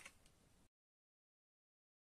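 Near silence: faint room tone that cuts to dead silence less than a second in.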